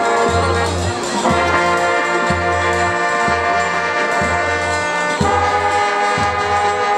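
Marching band brass section playing loud held chords over a bass line that pulses about once a second. The chords change about a second in and again past the five-second mark.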